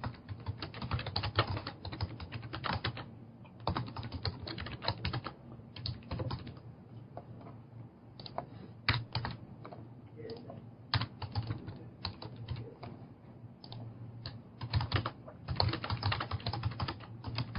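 Typing on a computer keyboard: irregular runs of quick keystrokes broken by short pauses.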